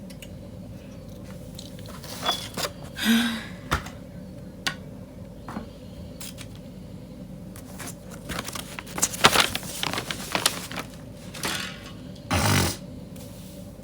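Close handling noises: scattered scrapes, rustles and a few light knocks as objects are moved about, busiest in the second half, over a steady low hum.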